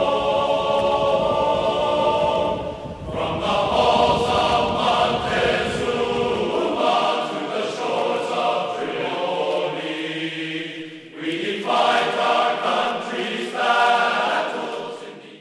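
Background music of choir-like voices holding sustained chords; the bass drops out about seven seconds in.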